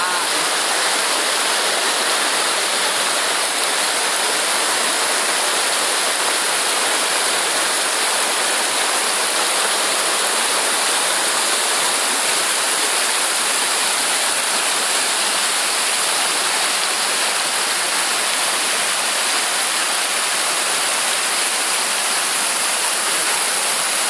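Shallow rocky mountain stream rushing over stones in small rapids: a steady, unbroken rush of water.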